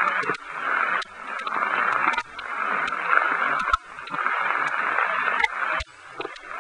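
Heavy downpour of rain: a steady hiss that swells and drops back every second or two, with scattered sharp ticks of drops striking close by.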